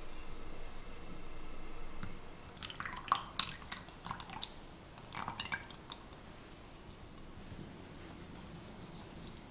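Heavy cream poured from a glass jug into a glass mixing bowl, splashing and gurgling in a few sharp bursts from about three to five and a half seconds in. Near the end, granulated sugar is tipped into the bowl with a brief light hiss.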